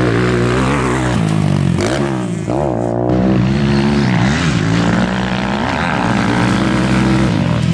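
BHR 300 R motocross bike engine running hard on track, its pitch rising and falling again and again with the throttle.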